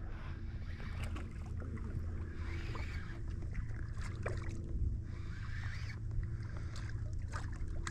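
Light water sloshing and small splashes around anglers wading in shallow bay water, over a low steady hum.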